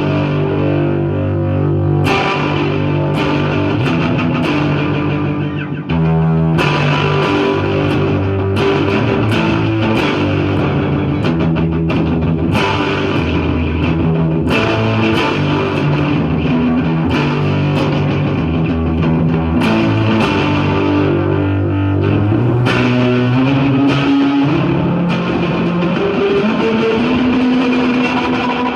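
Electric guitar improvising through a high-feedback delay and distortion, picked notes ringing out with echoing repeats.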